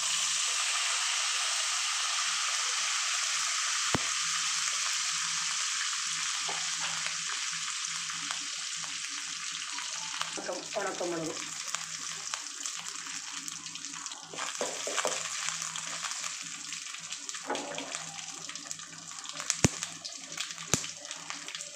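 Curry leaves frying in hot coconut oil with mustard seeds and urad dal in an aluminium kadai, the tempering stage of a Kerala thoran. A loud sizzle starts the moment the leaves go in, then settles into a steadily fading frying hiss with crackling and a few sharp pops.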